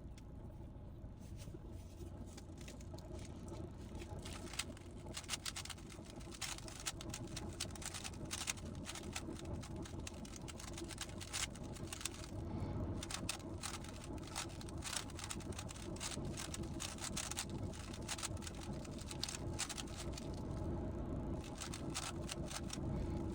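GAN 15 speedcube being turned fast by hand: rapid, irregular clicking of the cube's layers, sparse at first and dense from about four seconds in, over a steady low room hum.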